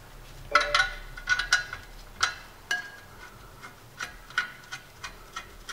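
Irregular sharp metallic clinks and ticks with a brief ring, loudest in the first few seconds and lighter after: a clutch pressure plate being fitted against the flywheel and its bolts started by hand.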